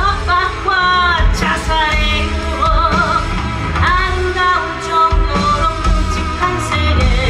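A woman singing a musical-theatre rock song live, holding long notes with vibrato over band accompaniment with a steady beat.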